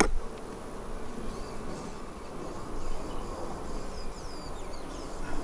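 Honeybees buzzing around an open, busy hive as a frame thick with bees is lifted out: a steady hum.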